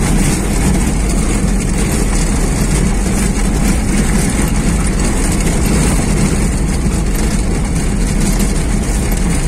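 Car engine pulling steadily up a hill on a dirt road, heard from inside the cabin as a continuous low drone mixed with tyre and road noise.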